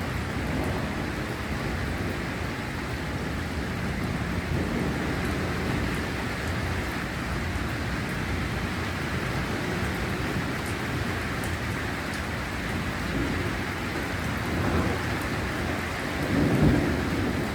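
Heavy rain falling steadily in a thunderstorm, with low thunder rumbling underneath and a louder rumble swelling briefly near the end.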